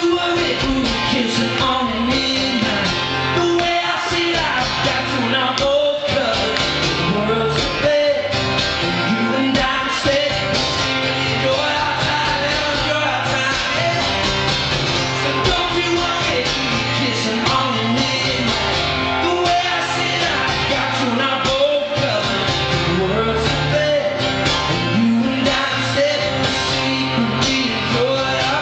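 A man singing into a microphone while strumming a cutaway acoustic-electric guitar, a live solo pop-rock performance.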